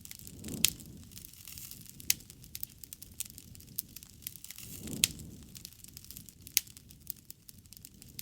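Wood fire crackling, with irregular sharp pops and snaps over a soft hiss. Two low rushing swells of burning come about half a second in and again about five seconds in.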